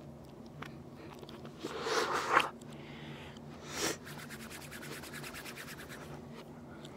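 Sounds played backwards: about two seconds in, a loud swell of rustling noise that stops sharply, and a shorter one just before four seconds. Then quick, even rubbing strokes of palms rubbed together, about ten a second, for a couple of seconds.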